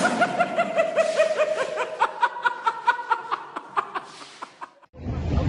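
A person laughing in a long run of quick, even 'heh-heh' pulses, about five a second, that fades out. A loud, steady rushing noise cuts in near the end.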